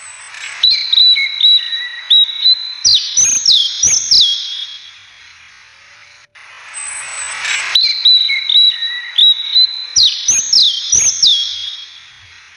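Birdsong background track looped: the same phrase of bird chirps plays twice, about seven seconds apart. Each phrase starts with a held whistle, then a run of short falling chirps, then higher, louder notes that rise and fall.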